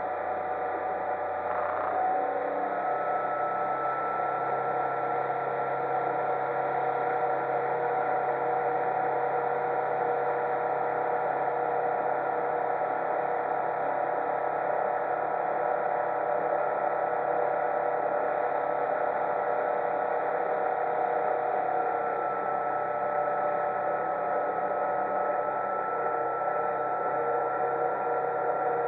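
1978 MerCruiser 140 hp 3.0-litre four-cylinder sterndrive engine running steadily with the boat under way, a constant hum whose pitch steps up about two seconds in and then holds.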